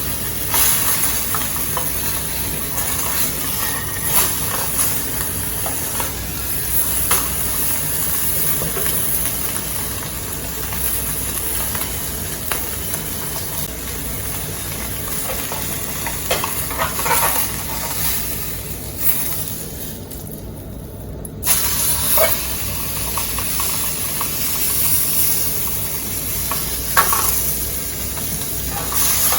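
Steak sizzling as it fries in an aluminium mess tin, a steady hiss with a few short clicks of metal against the tin.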